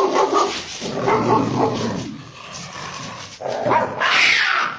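A dog barking, with a louder stretch of harsh noise near the end.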